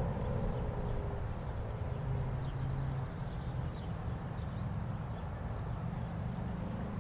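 Federal Signal 2001-SRN rotating warning siren winding down, its tone falling and fading out about a second in. A low steady hum and a few faint high chirps remain underneath.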